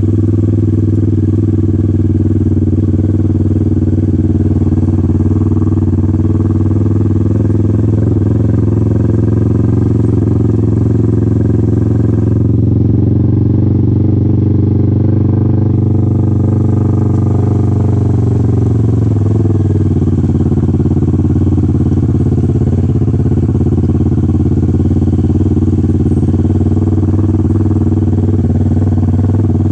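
Kawasaki Ninja 650's parallel-twin engine running at steady low revs while the bike is ridden, its note dropping a little about two-thirds of the way through.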